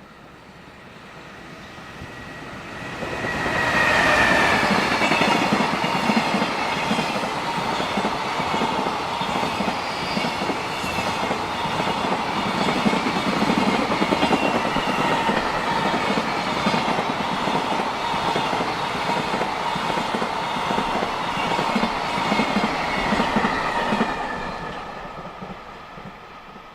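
A JR Freight train passing on the line. It builds over about four seconds, runs loudly for some twenty seconds as the wagons roll by, then fades near the end.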